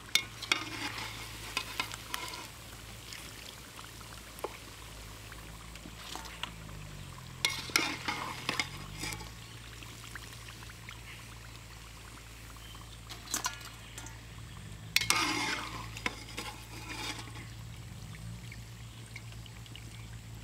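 Egg chops deep-frying in hot oil in a metal wok, a steady sizzle, with a slotted metal spoon stirring and scraping against the wok in several short clattering bursts, and oil dripping back into the pan as the spoon lifts the chops out.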